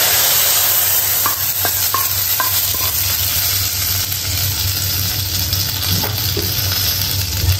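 Steady sizzling hiss of a hot coconut-oil tempering of mustard seeds, dried red chillies and curry leaves being stirred into sambar, with a few light clicks in the first couple of seconds.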